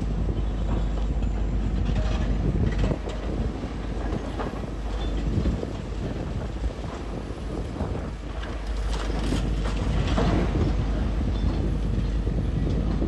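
Steady wind rumble on the microphone over outdoor street and traffic noise.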